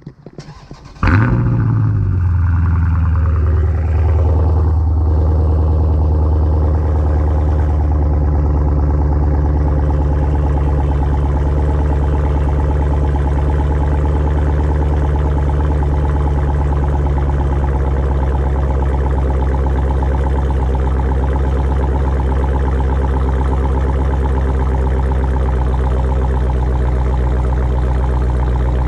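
2019 Dodge Challenger's V8 started by remote start: it fires about a second in with a brief flare of revs, then settles into a steady idle at the tailpipes.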